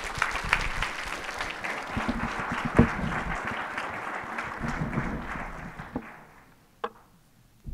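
Audience applauding at the end of a lecture, a dense steady clapping that fades out about six seconds in.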